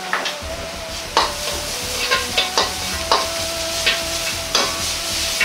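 Ground meat frying in a wok with doubanjiang, garlic and ginger, sizzling steadily. A metal ladle scrapes and knocks against the wok several times as the chef stirs.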